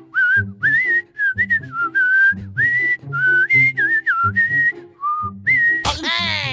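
Comedy background music: a whistled melody over a short, repeating low accompaniment. Near the end, a cartoon-style sound effect with sweeping pitch.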